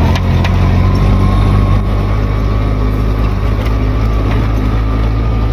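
A motor vehicle's engine running steadily, a low even drone with a faint steady whine above it.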